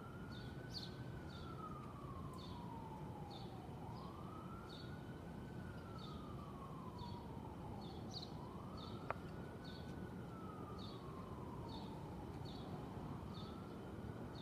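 Emergency vehicle siren in its wail mode: a single tone rising quickly and then sliding slowly down, once about every four seconds, over a steady city hum. A steady series of short, high chirps runs about two per second, and there is one sharp click about nine seconds in.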